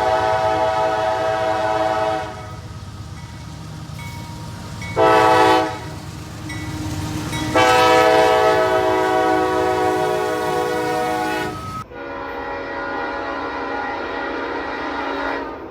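Locomotive air horn sounding a long blast, a short one, then another long one, the closing part of the standard grade-crossing warning signal, over the low rumble of a moving train. About twelve seconds in the sound cuts abruptly to a different locomotive horn held for several seconds.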